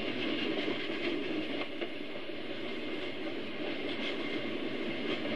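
HO scale model freight train of covered hopper cars rolling past on the track, a steady rolling rumble with faint clicks from the wheels.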